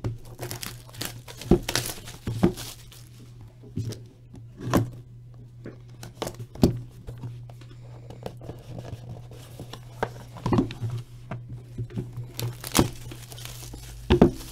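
Hands opening a hockey card box: cardboard and a wrapped pack being torn, crinkled and handled in short, irregular rustles and clicks, over a steady low hum.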